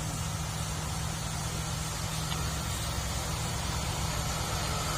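Heavy tronton truck's diesel engine running steadily at a low, even pitch.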